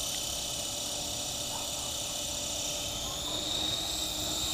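SkyKing HCW8500 remote-control helicopter's electric motor and rotors running with a steady high whine, getting louder about three seconds in as the rotors spin up toward lift-off.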